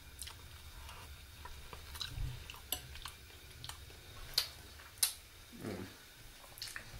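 Mouth sounds of someone tasting thick vanilla-flavoured double cream from a spoon: soft wet smacks and clicks about once a second, and a brief low murmur near the end.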